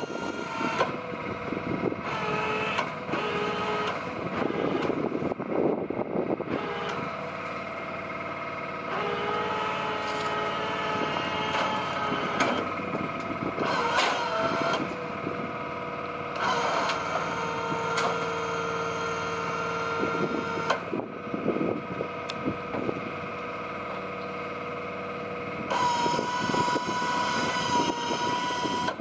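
A truck-mounted crane hoist and the truck's engine running as it lifts oysters from a boat. A steady mechanical whine shifts pitch in steps every few seconds, with scattered clanks.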